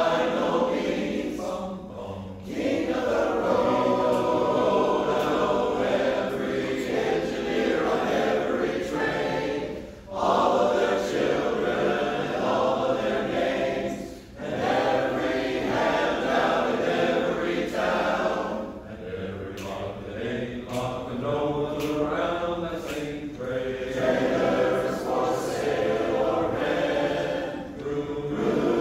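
Men's barbershop chorus singing a cappella in close four-part harmony, with short breaks between phrases about 2, 10 and 14 seconds in.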